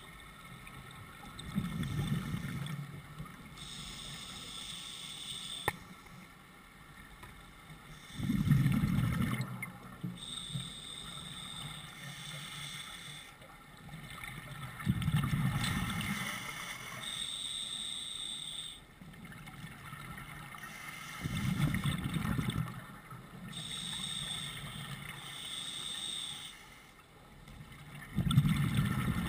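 Scuba diver breathing through a regulator underwater: a hiss with a thin whistle on each breath in, then a low bubbling rumble of exhaled bubbles on each breath out, repeating about every six to seven seconds.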